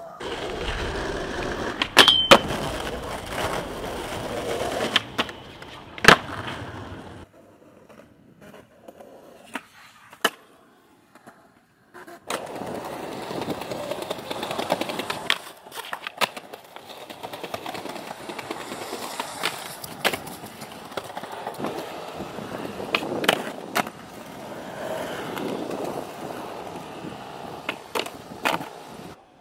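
Skateboard wheels rolling over concrete, broken by sharp clacks of the board striking the ground again and again, with a short lull partway through.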